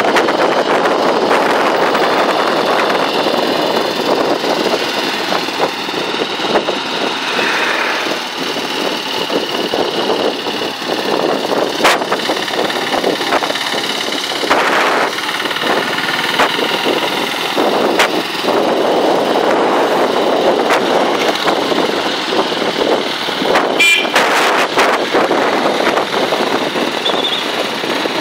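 Motorcycle riding along a road: steady engine and road noise with wind rushing over the microphone.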